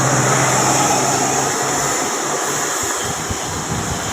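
Passing road traffic: a steady engine hum fades out about a second and a half in, under a constant rushing road noise.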